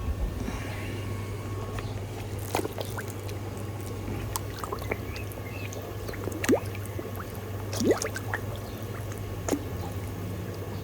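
Koi feeding at the pond surface: four sharp slurps and splashes as the fish take floating food, over running water and a steady low hum.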